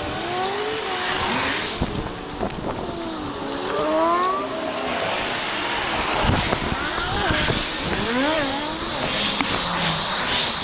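Road traffic passing close by on a multi-lane road: cars swish past about a second in and again near the end. Under it runs a wavering pitched sound that keeps rising and falling.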